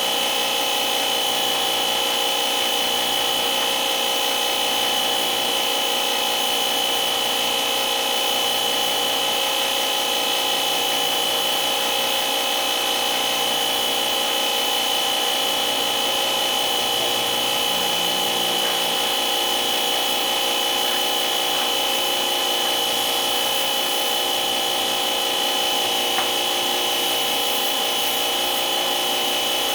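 A steady electric motor running without a break, with a high whine over a noisy hiss.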